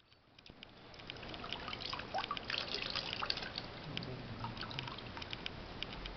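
Water poured over a baby's head, trickling and dripping into a stone baptismal font. It fades in over the first two seconds, then runs on with many small, quick splashes.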